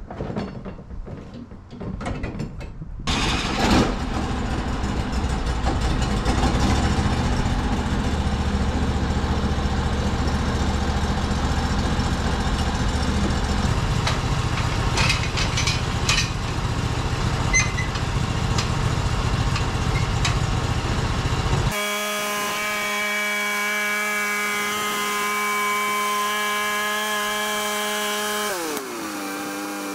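Norwood HD36 portable bandsaw mill: after a few light clicks and knocks, its gas engine comes in loud about three seconds in and the band blade saws through a white pine log, a steady rush of engine and cutting noise. Near the end this gives way to a steady engine tone, which drops in pitch as the engine is throttled back about a second before the end.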